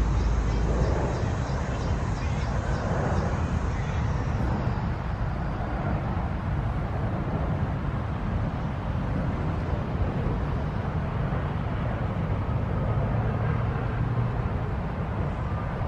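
Steady low rumble with a hiss over it and no distinct events, typical of wind buffeting the microphone outdoors.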